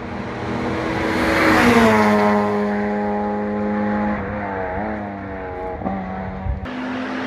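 Rally car engine passing at speed: loudest about one and a half to two seconds in, then its note falls as it goes by and carries on, with a brief change in throttle about five seconds in.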